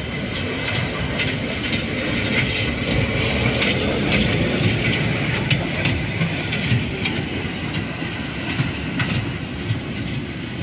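Children's amusement-park train running on its small track, a steady rumble from its wheels and cars with sharp clicks every second or so as it rolls over the rail joints. It is somewhat louder in the middle, as the cars pass close by.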